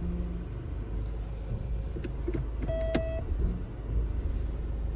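Mahindra Scorpio-N's 2.2-litre four-cylinder diesel idling steadily, with a few short clicks and knocks about two to three seconds in and a short electronic beep near three seconds.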